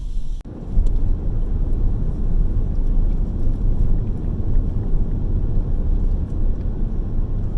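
Steady low rumble of road and wind noise in a moving car.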